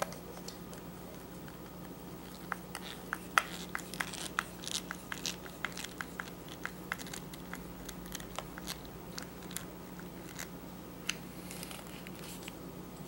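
Screwdriver turning a small screw into a handheld radio's plastic belt clip: irregular small clicks and crunches, several a second, from about two seconds in until near ten seconds.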